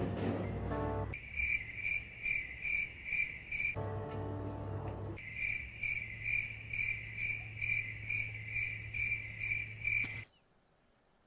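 Cricket chirping: a high, even chirp repeating about three times a second, in two runs broken by a short pitched sound about four seconds in, cutting off about a second before the end.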